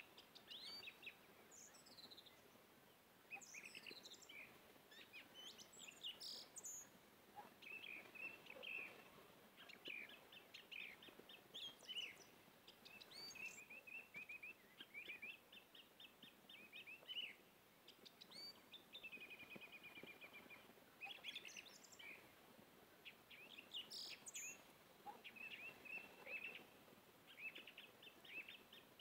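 Faint birdsong: small birds chirping and trilling over and over in quick, high runs.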